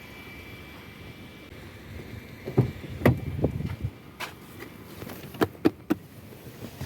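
A low steady hum, then from about two and a half seconds in a run of irregular knocks and clicks, like things being handled and moved about in a car.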